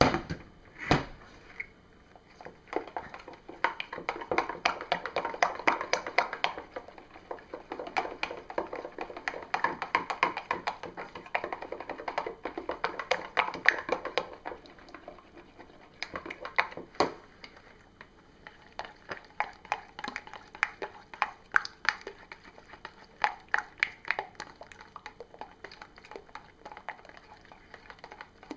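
A utensil hand-stirring soap batter in a container, with many quick irregular clicks and taps against its sides over a soft scraping.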